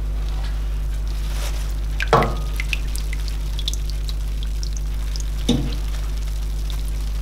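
Ultrasonic cleaner running with a steady buzzing hum and a fine sizzling hiss in the water. The wire-mesh basket is lifted out and clanks against the steel tank about two seconds in and again about five and a half seconds in, with water dripping back into the bath between the knocks.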